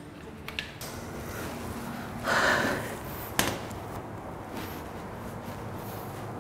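A door being opened and shut: a short rush of noise about two seconds in, then a sharp latch click about a second later, with a few light knocks before it.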